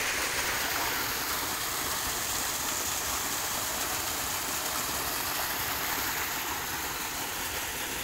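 Water rushing and splashing down a small drop in a rice-field irrigation ditch: a steady, even rush of running water.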